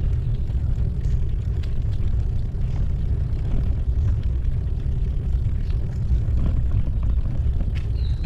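Steady low rumble of riding over an interlocking brick path: tyres rolling and wind on the microphone. A bird's descending whistled call starts near the end.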